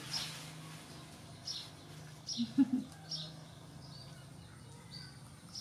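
Small birds chirping in the background, a short high chirp about once a second, over a steady low hum. About two and a half seconds in comes a brief low vocal sound with a sharp peak.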